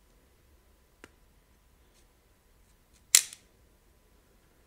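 Metal clicks from a Luger LP08 pistol's toggle assembly as its axle pin is pushed out by hand: a faint click about a second in and a sharp, much louder click about three seconds in.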